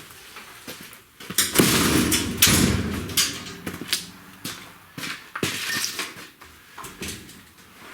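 Workshop handling noises: several sharp knocks and clanks with scraping rushes between them, the busiest stretch about a second and a half in and another around five and a half seconds.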